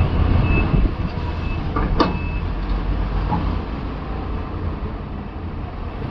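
Heavy mining machinery's diesel engines running with a low rumble while an excavator loads a dump truck. A truck's reversing beeper sounds a few times in the first two seconds, and a sharp metallic clank comes about two seconds in, with a lighter one a second later.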